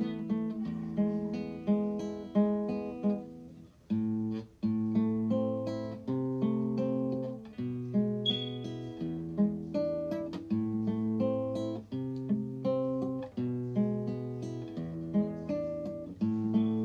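Background music: acoustic guitar playing plucked and strummed chords, with a brief break about four seconds in.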